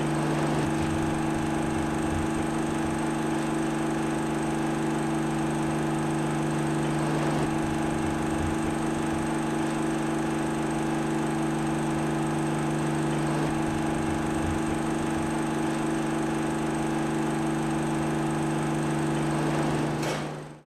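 A steady hum of several fixed low tones over a faint haze, like a running machine, which fades out quickly just before the end.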